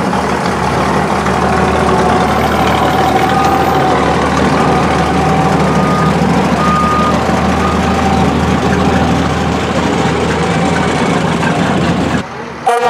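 Fire truck's heavy engine running steadily, with a series of short, evenly repeated high beeps over several seconds in the middle, like a reversing alarm. The sound cuts off abruptly near the end.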